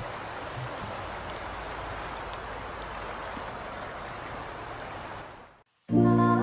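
River water rushing steadily. It fades out about five seconds in, and background music starts just before the end.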